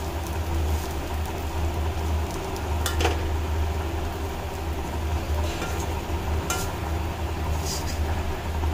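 A perforated metal spatula stirring a dry mix of grated ash gourd, coconut and nuts in a kadai, with a few clinks of the spatula against the pan, over a steady low hum.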